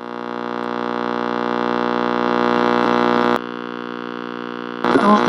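A sustained electronic tone with many overtones, slowly swelling louder, then stepping down to a quieter steady level a little over three seconds in. Near the end a different, choppier sound cuts in.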